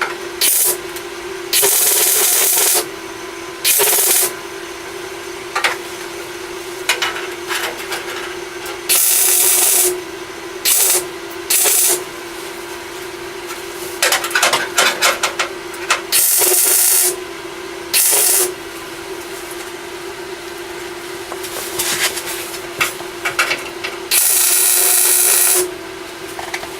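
Welder laying short tack welds on sheet metal: a string of crackling bursts, each up to about a second and a half long with short pauses between them, over a steady hum.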